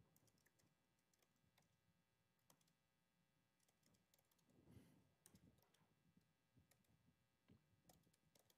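Faint, irregular clicks of typing on a laptop keyboard over near silence.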